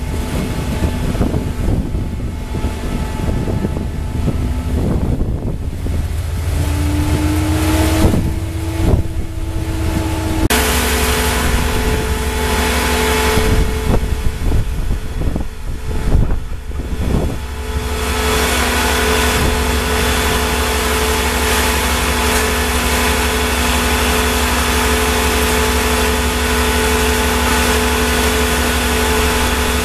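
State Railway of Thailand CSR SDA3 diesel-electric locomotive, its engine running steadily with a low rumble and a steady whine. Before that, for about the first third, an approaching train's engine with a slowly rising tone and some knocking, cut off suddenly.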